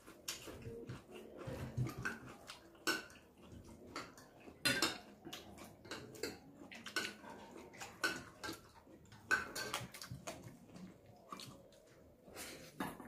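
Eating sounds at a table: a spoon clinking against a soup bowl and fingers working rice on a plate, heard as scattered, irregular sharp clicks and taps.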